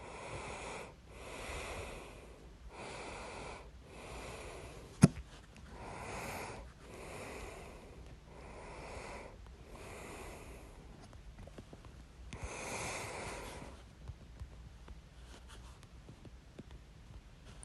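A person breathing audibly in and out in slow, even breaths, with one sharp, loud hiccup about five seconds in.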